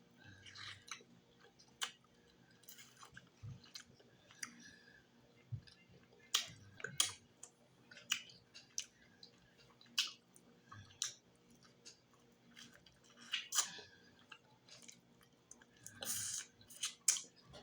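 Close-miked chewing with wet lip smacks and mouth clicks from someone eating fried fish and fufu, in irregular sharp clicks that come in short clusters.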